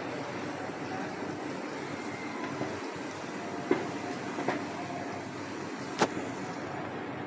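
Spatula stirring thick haleem of lentils and pounded meat in an aluminium pressure cooker, a steady scraping churn with a few sharp taps of the spatula against the pot, the last and loudest near the end.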